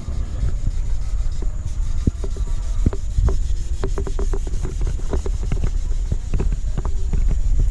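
Steady rubbing and scraping of workshop work on a part, with a low rumble and many irregular sharp clicks and knocks through the middle.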